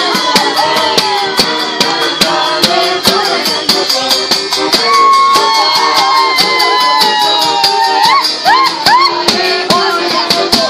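Live Moldovan folk dance music: a bass drum with a cymbal mounted on top strikes a steady beat while a flute and an accordion carry the melody, with a few quick rising swoops near the end.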